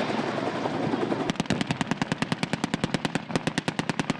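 Automatic gunfire from a machine gun firing blanks in a mock battle: a long, even burst of about ten shots a second, starting about a second in after a dense rush of noise, with a brief break near three seconds.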